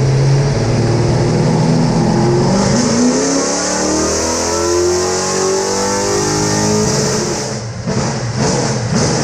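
Holley-carbureted GM 604 crate small-block V8 in a race car making a wide-open-throttle pull on a chassis dyno: the engine note climbs steadily in pitch for about six seconds, then the throttle closes and the revs fall away near the end.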